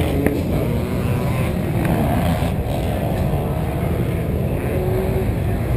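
Motocross dirt bike engine idling steadily.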